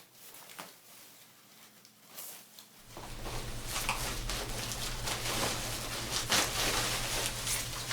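Plastic and foam packaging rustling and crinkling as a flat-screen TV is handled out of its box, starting about three seconds in and running on densely, with a low hum underneath; before that only a few faint taps.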